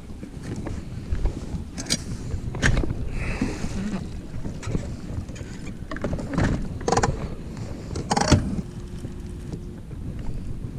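Irregular knocks and clatter on a fishing boat, about eight sharp hits, over wind noise on the microphone.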